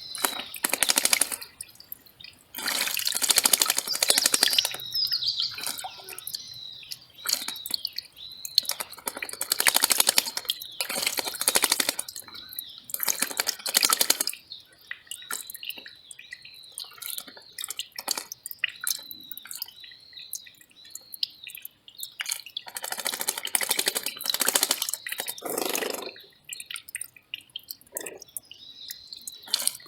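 Small mountain stream trickling and splashing over rocks in irregular spurts, with a bird's short high chirps repeating in the background.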